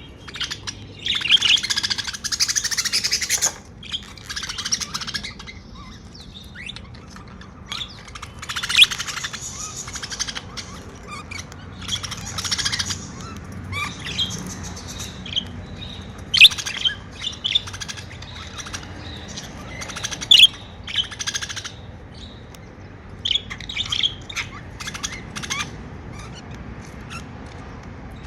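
Pet budgerigars chirping and chattering, with dense warbling bouts and many short sharp chirps in between.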